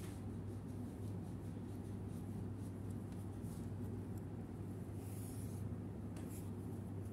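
Faint scratching and rubbing of a steel crochet hook pulling cotton yarn through double crochet stitches, in irregular strokes over a steady low hum.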